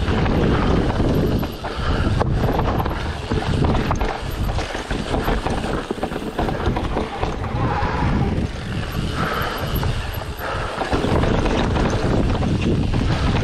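Wind buffeting the microphone of a camera on a moving mountain bike, with occasional knocks and rattles from the bike on rough ground.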